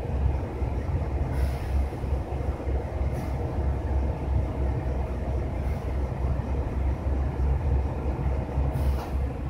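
A steady low rumble with a faint steady hum above it, and a few faint ticks.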